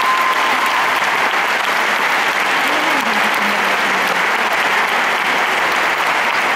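Large audience applauding steadily, a dense unbroken clapping.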